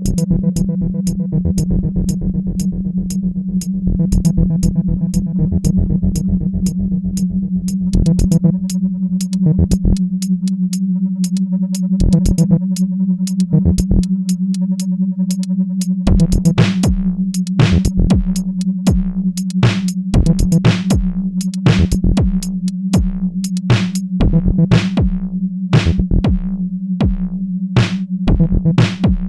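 Electronic background music: a steady low synthesizer drone under sharp drum-machine beats, with a deep kick drum coming in a little past halfway.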